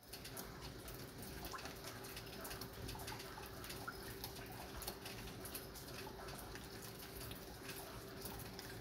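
Light rain falling, heard as many small scattered drop ticks over a steady hiss, with a faint steady hum underneath.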